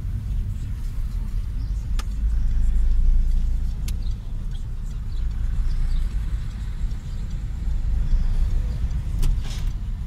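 A car driving, heard from inside the cabin: a steady low rumble of engine and road, swelling a little about three seconds in, with a couple of faint clicks.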